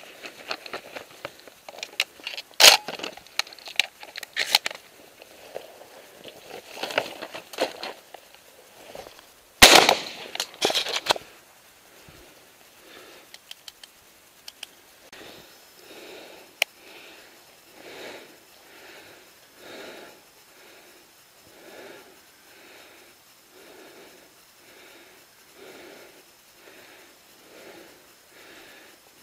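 Leaves and twigs rustling and crackling close to the microphone as someone pushes through brush, with two louder sharp cracks about three and ten seconds in. Then, from about thirteen seconds, heavy breathing close to the microphone, roughly one breath a second.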